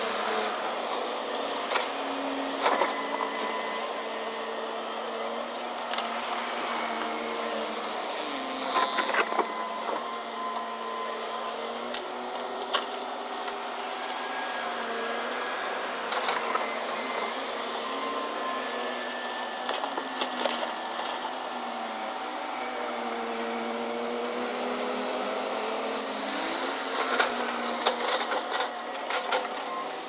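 Steady mechanical whine whose pitch wavers and glides, with scattered sharp clicks, more of them near the end.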